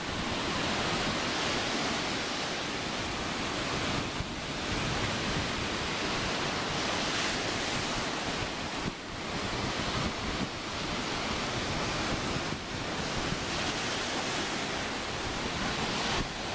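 Ocean surf breaking and washing in foam around the pier's pilings, a steady rush with brief dips, with wind rumbling on the microphone.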